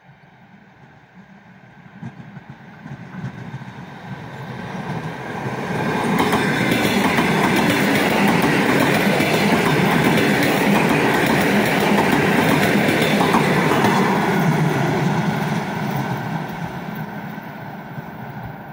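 ЭП3Д electric multiple unit approaching and passing close by. Its running noise builds over several seconds, stays loud for about nine seconds as the cars go past, then fades as the train moves away.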